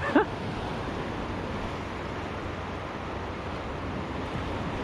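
Ocean surf washing steadily onto the beach, an even, unbroken rush of waves.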